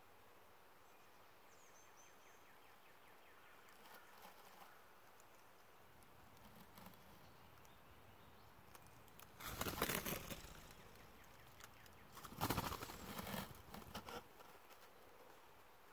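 Woodcock flushing from the leaf litter: after a long quiet stretch, a sudden burst of wing flapping and rustling leaves, then a second, similar burst a couple of seconds later.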